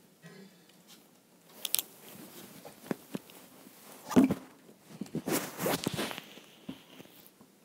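Handling noise of a handheld recording device being picked up and moved: irregular knocks, clicks and rubbing rustles, the loudest knock about four seconds in and a dense patch of rustling and clicks soon after.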